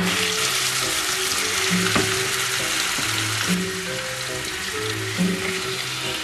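Beef steaks sizzling as they fry in hot oil in a nonstick pan, a steady hiss with a couple of sharp clicks. Soft background music plays underneath.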